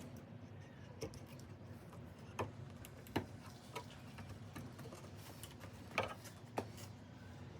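Irregular sharp clicks and light taps of hand work on a ratchet handle as its soft rubber grip is being cut away, over a faint steady background.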